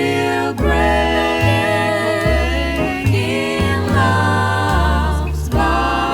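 Jazz vocal quartet singing a slow song in close harmony, several voices holding chords together over a low line underneath.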